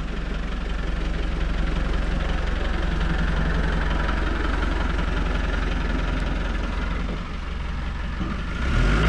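Land Rover Defender 90's diesel engine running steadily at low revs, with a rapid, even low beat. It grows louder near the end.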